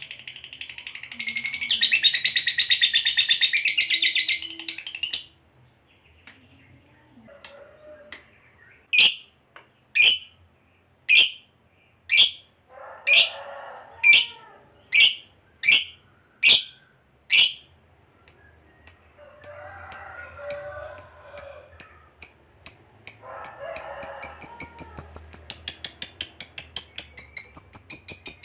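Fischer's lovebird calling: a long, fast, shrill chatter for about five seconds, the drawn-out trill that keepers call ngekek panjang. Then a run of single sharp chirps a little over half a second apart, which come faster and faster and run together into a rapid trill again near the end.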